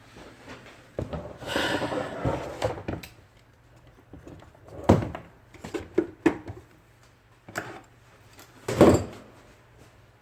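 IBM Selectric II typewriter mechanism and parts being handled during repair: a stretch of rustling and scraping about a second in, then a few separate sharp clicks and knocks, the loudest near the end.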